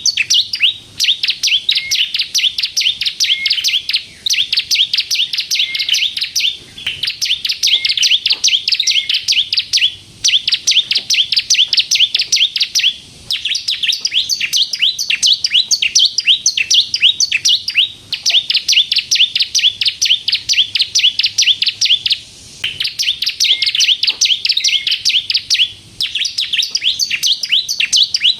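Ciblek kristal, a prinia, singing persistently: long phrases of fast, sharp, high chirps, many notes a second, each run lasting a few seconds and broken by brief pauses.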